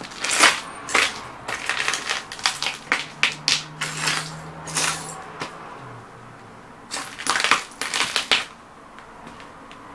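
Cowboy boots stomping and grinding broken vintage radio tubes on concrete: glass and metal fragments crunching and clinking under the heels in quick repeated stomps, with a short pause halfway and one more flurry before the stomping stops near the end.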